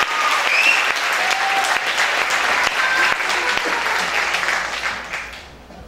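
Audience applauding, with a few brief shouts, the applause dying away about five seconds in.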